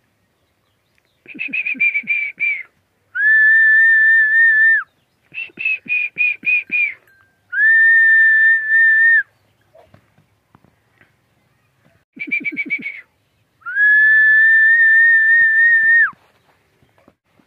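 Donkey braying: three hee-haw cycles, each a run of short rasping pulses followed by a long, steady high note that drops at its end. The third cycle comes after a pause of about three seconds and has the longest note.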